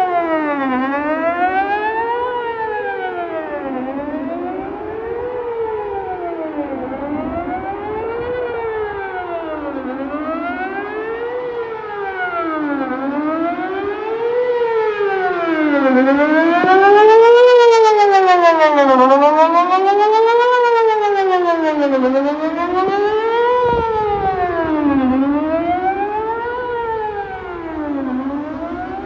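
Whelen WPS-4008 electronic outdoor warning siren sounding a wail for its monthly test, the tone rising and falling about every three seconds and swelling louder near the middle. A brief pop comes about two-thirds of the way through; the owner takes such popping for one of its speakers going out.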